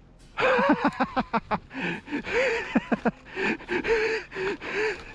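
A man's voice gasping and breathing hard in quick, short voiced bursts, starting about half a second in.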